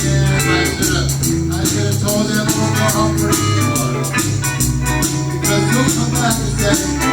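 Blues-style song with bass, guitar and a steady percussion beat.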